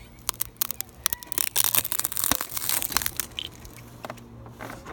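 A quad bike's tyre slowly rolling over and crushing something brittle: a run of cracks and crunches that is densest in the middle, with one sharp snap about two seconds in.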